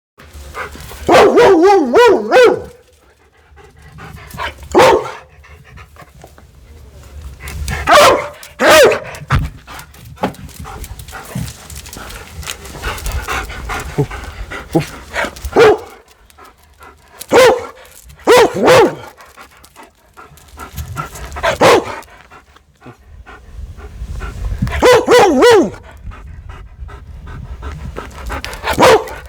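A dog giving short calls with a wavering pitch, each about a second long, repeated unevenly about nine times, with breathing or panting noise between them.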